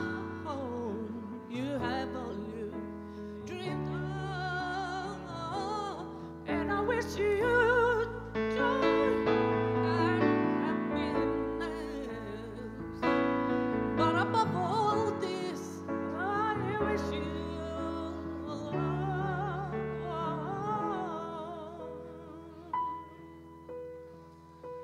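Live song: a singer holding long notes with strong vibrato over sustained keyboard chords and bass notes, growing quieter near the end.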